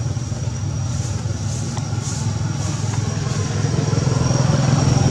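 An engine running steadily at idle, a low even hum, with a thin steady high-pitched tone above it.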